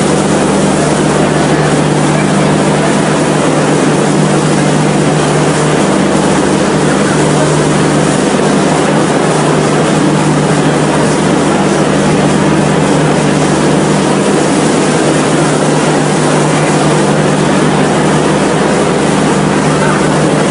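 Loud, steady running noise of a moving Indian Railways train, an even roar with a constant low hum that does not change.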